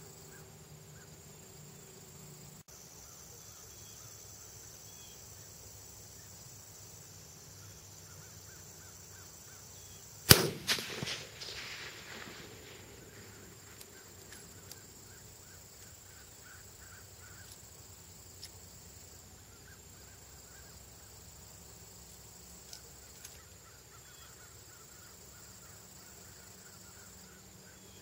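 A single rifle shot about a third of the way in, chambered in 6.5x61 Super: one sudden loud crack whose report echoes and rolls away over about two seconds.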